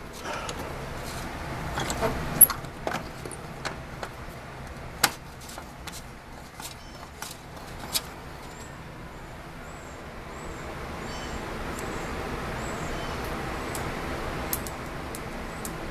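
Scattered clicks and knocks of handling, the sharpest about two seconds in. From about ten seconds a steady rushing noise swells, with a string of faint, short, high chirps.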